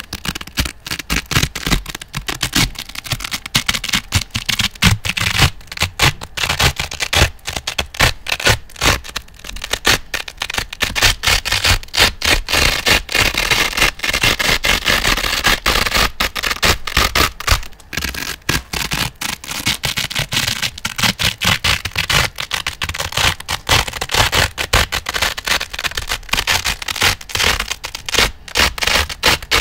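Velcro hook-and-loop strips being ripped apart and rubbed against each other close to the microphone: a continuous, dense crackling rasp made of many quick scratchy strokes.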